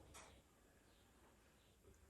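Near silence, with one faint short puff of breath blown through a drinking straw onto wet acrylic paint just after the start.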